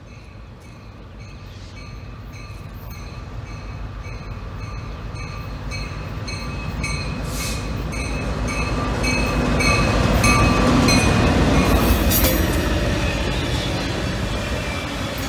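CSX GP38-2 diesel-electric locomotive (EMD two-stroke V16) approaching and passing with its train of inspection cars. The engine and rolling wheel noise grow louder to a peak about ten to twelve seconds in, then ease as the cars roll by. A grade-crossing warning bell rings steadily throughout.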